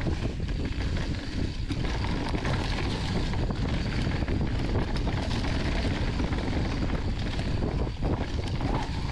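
Mountain bike riding fast down a dirt trail: wind rushing over the helmet camera's microphone with a steady low rumble of tyres on the ground and scattered knocks and rattles.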